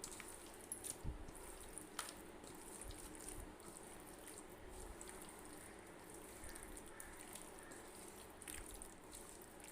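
Faint wet squelching of hands kneading raw chicken pieces in a thick yogurt and spice marinade, with a few soft clicks.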